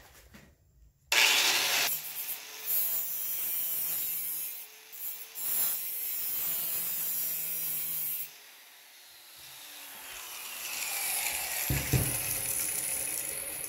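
Angle grinder starting about a second in and grinding the corner notch of a 16-gauge mild steel sheet, throwing sparks. The sound eases about eight seconds in, then builds again toward the end.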